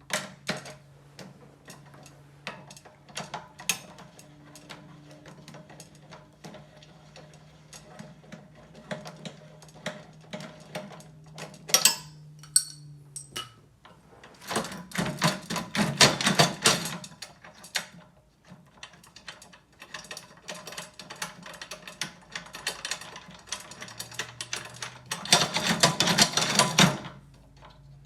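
Metal drum hardware being handled and tightened: small clicks and taps of bolts, screws and fittings throughout, with two louder stretches of rapid clicking, one a little past halfway and one near the end.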